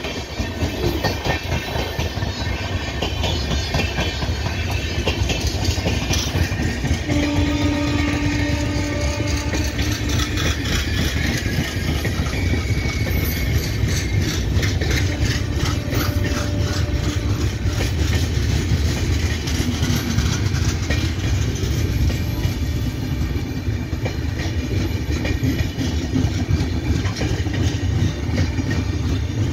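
LHB passenger coaches of an express train passing close by at speed: a loud, steady rumble of wheels on the rails with rapid clattering over the rail joints.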